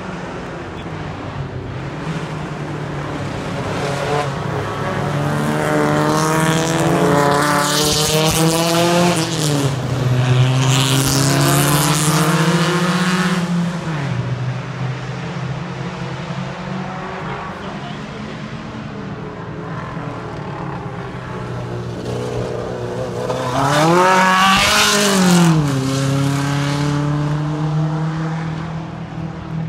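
Vintage race cars passing on a road course, their engines rising and falling in pitch as they go by. There are two loud stretches, one about a third of the way through and another shorter one near the end.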